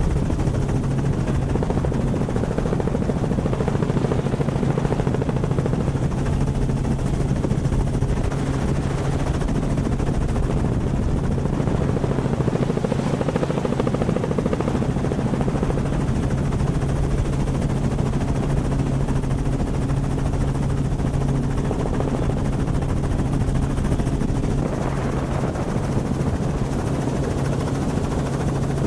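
Helicopter rotor and engine running steadily, heard from on board: a constant low hum under a fast, even chop from the blades.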